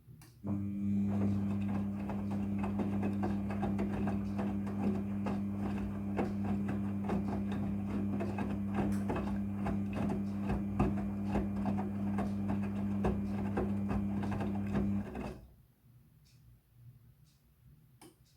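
Midea front-loading washing machine running: a steady electric hum with a rapid, irregular clicking over it. It starts abruptly about half a second in and cuts off about fifteen seconds in.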